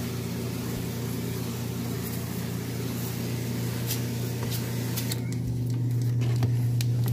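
Carpet-cleaning machine running steadily with a low electric-motor hum and a hiss above it, growing louder near the end.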